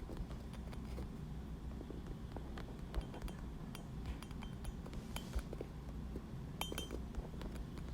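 Faint, scattered light clicks and a few small clinks, two of them briefly ringing about five and seven seconds in, over a low steady room hum.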